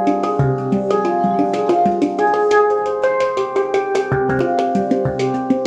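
Baopan handpan in C minor played with the hands in a fast, busy rhythm: quick strikes on the tone fields over ringing notes, with a deeper low note sounding now and then.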